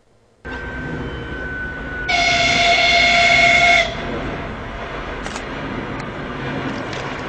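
Diesel locomotive hauling a passenger train, its engine and wheels making a steady rumble, with one loud horn blast of nearly two seconds about two seconds in.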